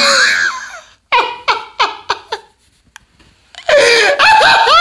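A man laughing hard and high-pitched: a loud burst, then a run of short laughing pulses that fade out, a second's pause, and loud laughter again near the end.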